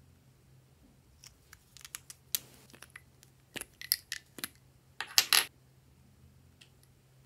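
Small plastic lipstick-style tubes clicking and rattling against each other as they are handled: a string of sharp clicks, with the loudest, denser rattle about five seconds in.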